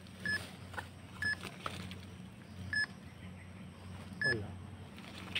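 Metal detector giving short, high electronic beeps, four times at uneven intervals, over a steady low hum. A brief falling sound comes about four seconds in, with the last beep.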